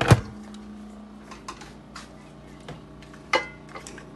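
Pots and cooking utensils clattering: a loud clank right at the start, a few light taps, and another clank with a short ring a little after three seconds.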